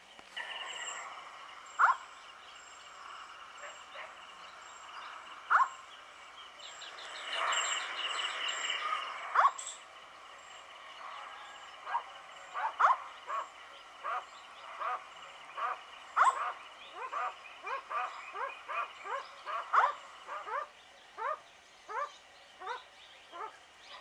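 Indian scops owl calling with short, rising notes. A few come spaced out at first, then from about halfway they run on quickly, about two a second.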